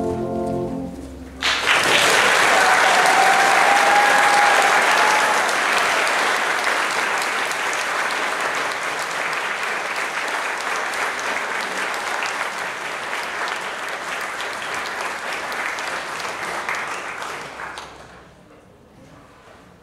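A brass band's last held chord ends about a second in. Audience applause then breaks out, loudest at first, with a drawn-out call over it about two seconds in, and slowly dies away until it stops about eighteen seconds in.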